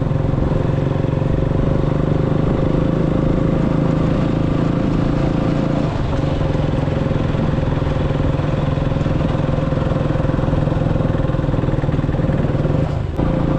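Motorcycle engine running steadily while riding, with a brief easing about six seconds in and again near the end.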